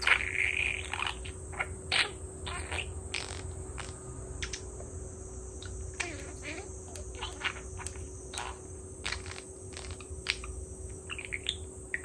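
Budgerigar chattering at its reflection in a mirror: an irregular run of short chirps and clicks, with a brief warble at the start.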